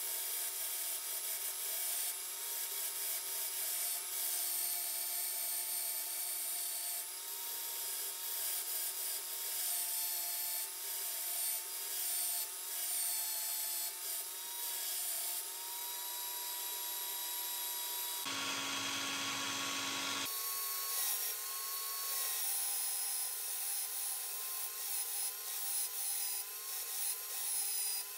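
Continuous abrasive rubbing and scraping from sanding work on the old toy sewing machine's parts, over a faint wavering whine. It cuts off abruptly at the end.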